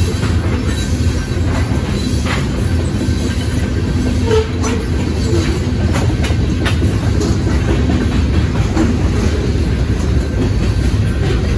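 Union Pacific manifest freight train's cars rolling past: a steady rumble of steel wheels on the rails, with irregular clacks as the wheels pass over the track.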